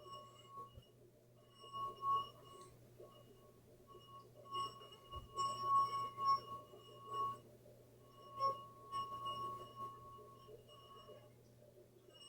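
Wet finger rubbed around the rim of a water-filled stemmed glass, making it sing: a steady, high ringing tone that swells and fades, stopping and starting several times.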